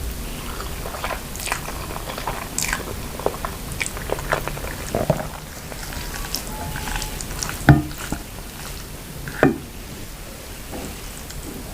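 Close-miked eating: a mouth chewing and biting instant noodles with grilled chicken pieces and vegetables. Irregular short wet clicks, with two louder ones about two-thirds and four-fifths of the way through.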